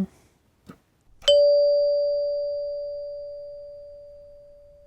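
A Heath Zenith two-note electric door chime, run on 9-volt batteries instead of its 16 V AC supply, strikes its top chime once about a second in, after a faint click. It gives a sharp strike and then a single clear note that rings on, slowly fading.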